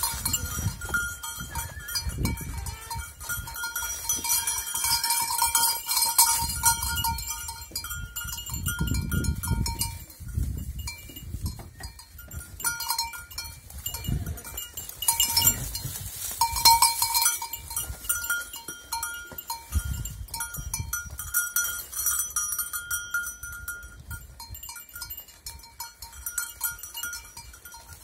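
Small bells on the dwarf goats' collars clinking on and off as the goats jostle and feed, over the rustle of holm oak leaves and twigs being pulled and stripped.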